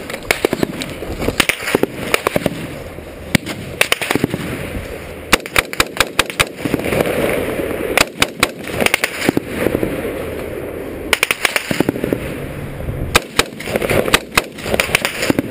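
Rifle fire close to the microphone: sharp gunshots, some single and some in quick strings of several, from the soldier's own carbine, which is ejecting spent casings, amid the exchange of fire.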